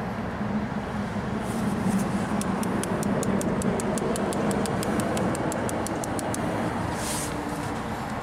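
Steady outdoor rumble of background traffic, with a quick run of light, evenly spaced ticks, about five a second, from about two and a half to six and a half seconds in.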